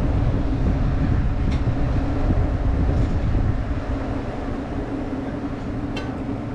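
Steady low machinery hum and rumble, with a few faint ticks about one and a half seconds in and near the end.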